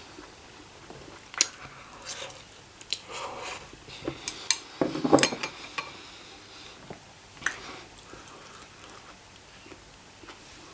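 Someone eating ramen noodles with chopsticks: a few sharp clicks of the chopsticks against the bowl and the mouth sounds of eating. The loudest stretch comes about five seconds in.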